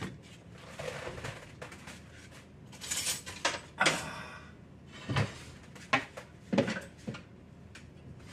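A wooden dough bowl and cookware being moved about on a kitchen counter: several knocks and scrapes between about three and seven seconds in, with a quieter stretch before them.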